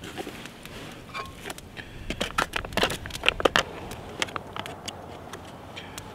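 A foil-lined freeze-dried meal pouch crinkling as a spoon stirs and scoops inside it, with a dense run of sharp crackles and scrapes in the middle.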